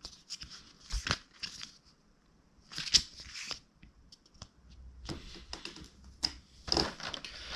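Cardboard and paper packaging of an advent calendar being handled and pulled open, in short bursts of rustling and tearing with several sharp clicks.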